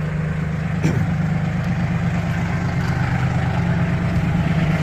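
Massey Ferguson tractor engine running steadily, with a brief click about a second in.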